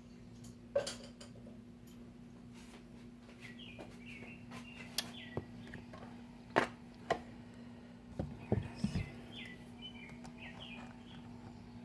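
Several sharp clicks and taps of small metal parts, the nut and washers of a boat starter's terminal being handled and fitted, with a cluster of taps near the end. Small birds chirp in short bursts over a steady low hum.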